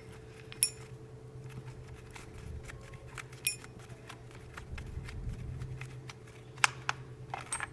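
Scattered light clicks and small metallic clinks as the spark plug is unscrewed by hand from a Stihl FS90R trimmer's engine, over a steady low hum.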